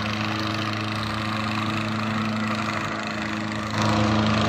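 Diesel tractor engines running hard under heavy load, pulling against each other in a tractor tug-of-war, with thick black exhaust smoke as a sign of full throttle. A steady, even engine drone that gets louder about four seconds in.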